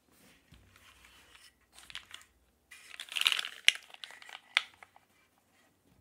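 Handling noise as a mechanical keyboard is lifted and turned over onto a cloth desk mat: rustling and sliding, loudest about halfway through, with two sharp knocks of the keyboard's metal case near the middle.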